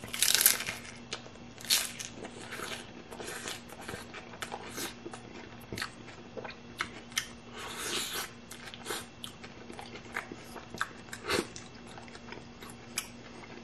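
Close-miked bite into a crunchy hard taco shell, with a loud crunch at the start. It is followed by chewing with irregular crackling crunches of the shell.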